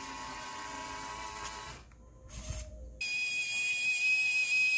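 Small electric gear motors of a homemade RC truck whining steadily. The sound drops away briefly about two seconds in, then a louder, higher-pitched whine starts abruptly about three seconds in.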